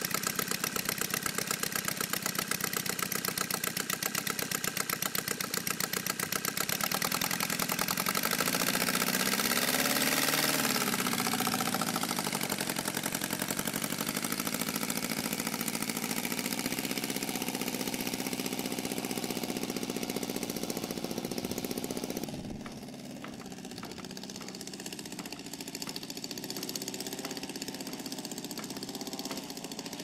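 Saito FG-57T twin-cylinder four-stroke petrol boxer engine of a large RC model Corsair, driving a 22x10 propeller. It runs steadily, revs up and down about a third of the way in, then runs quieter for the last quarter.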